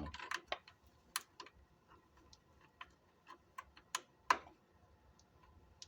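Irregular light clicks and taps of small plastic and metal parts being handled and fitted, with a few sharper clicks about a second in and around four seconds.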